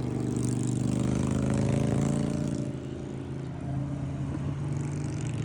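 A car engine running steadily, a low even hum that drops slightly in level about three seconds in.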